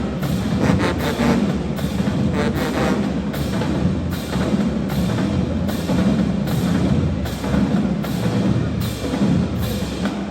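HBCU marching band playing: brass over a drumline keeping a steady beat of about two strikes a second.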